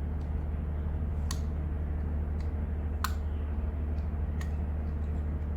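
A few sharp, separate clicks of small plastic seat-belt parts being handled and pressed into place, over a steady low hum.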